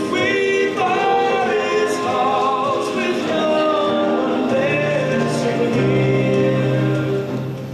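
Recorded music with a singing voice over held notes; it fades down shortly before the end.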